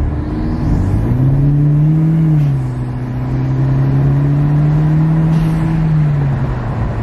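Hyundai Genesis Coupe 2.0T's turbocharged four-cylinder, breathing through a K&N cold air intake, accelerating. The engine note climbs, drops as the automatic shifts up about two and a half seconds in, then climbs slowly again and eases off near the end.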